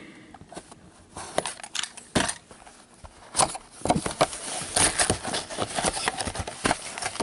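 Sealed trading-card boxes being torn open and packs handled: crackling, ripping cardboard and wrapper, and light taps and clicks, sparse at first and much busier from about halfway through.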